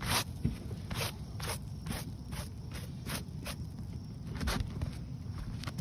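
Short gritty scraping strokes against asphalt roof shingles, repeating about twice a second, over a low wind rumble on the microphone.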